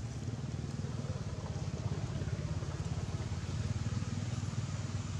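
A steady low rumble, like a running engine.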